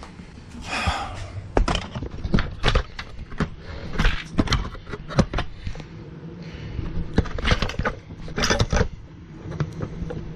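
Irregular knocks, clicks and rattles of parts and tools being handled, over a faint low steady hum.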